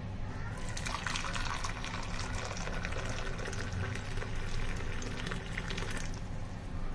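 Water poured in a steady stream into a ceramic cup, filling it. The pouring starts just under a second in and stops about a second before the end.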